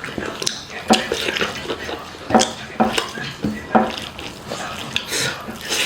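Close-miked eating sounds: wet chewing and lip smacking on a mouthful of rice and chicken curry, a string of irregular short smacks and squelches.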